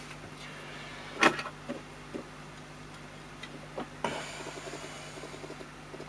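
A few light clicks and taps of soldering tools at an electronics workbench, the sharpest about a second in, over a steady low hum; a faint hiss with small ticks follows from about two-thirds of the way through.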